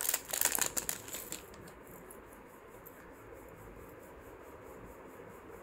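A quick run of crinkling and clicking as a jewellery set is handled and brought out, lasting about a second and a half, then only a faint steady hiss.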